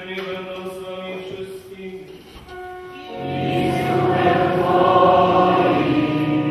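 A priest chanting a line of the Mass, his voice holding steady sung notes. About three seconds in, many voices join together in a louder sung response.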